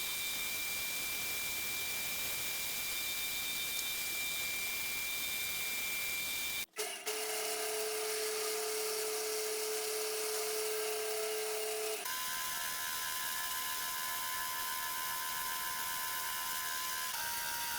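Bandsaw running with a steady whine and rushing noise as it cuts wood for knife handle scales. The pitch jumps abruptly a few times.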